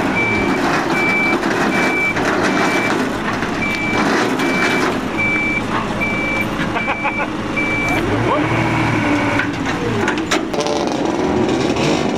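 A vehicle's reversing alarm beeps steadily, about one high beep every 0.8 seconds, over running engines, and stops about eight seconds in. After that an engine rumble grows louder, with some revving.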